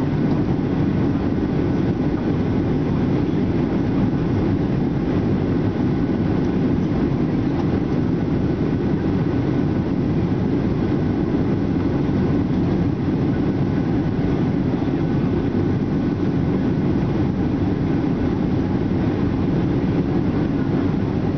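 Steady cabin noise inside a Boeing 737-800 on its way in to land: the hum of its CFM56-7B turbofan engines and rushing airflow, heavy in the low end, with a faint steady whine above.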